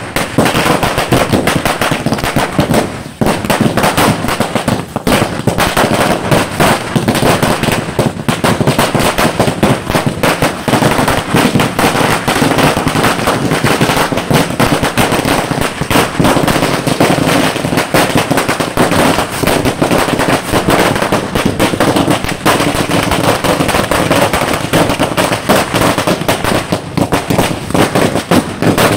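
A long string of small firecrackers going off, a rapid, unbroken crackle of bangs as the chain burns along its length.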